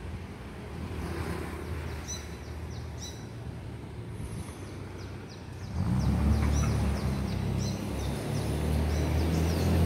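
Outdoor ambience of birds chirping repeatedly in short, high, falling notes over a low rumble that grows louder about six seconds in.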